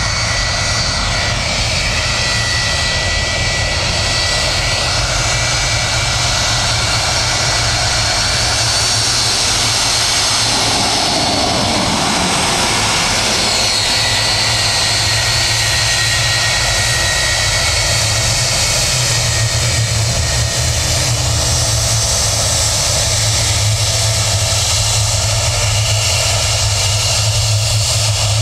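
Boeing 757 jet engines running at taxi power as the airliner rolls past close by: a steady jet roar with a high turbine whine. The roar swells about halfway through, and the whine then drops slightly in pitch as the plane moves on.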